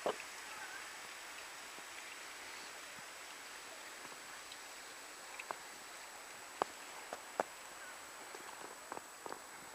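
Quiet outdoor hiss with a few scattered short crunches, most of them in the second half: footsteps in fresh snow.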